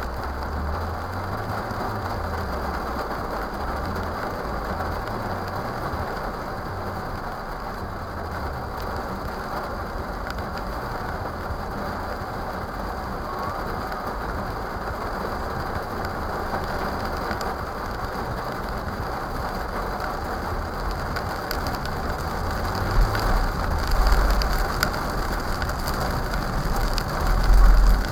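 Steady hiss of rain falling on a car, picked up by a windshield-mounted dashcam inside the cabin, with a few low rumbling thumps near the end.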